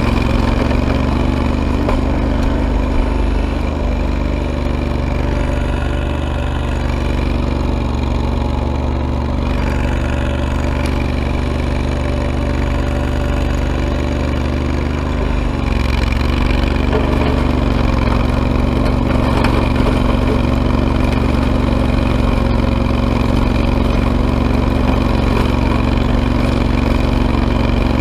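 Ariens Grand Sierra lawn tractor engine running steadily while the tractor pushes snow with a front plow blade. The engine note eases off a little for a stretch and strengthens again just past the middle.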